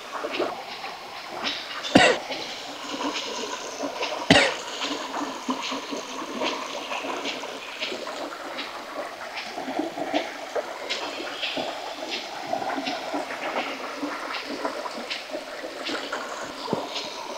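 Shallow stream running steadily, with a string of light clicks and taps as split green stems are handled, and two louder sharp knocks about two and four seconds in.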